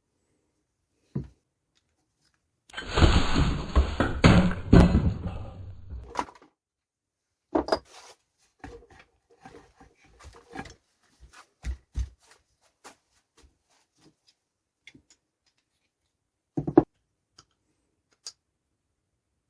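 Workshop handling of a vintage machinist vise and its parts during restoration. There are a few seconds of dense scraping and rattling, then scattered light clicks and knocks and one sharp knock near the end.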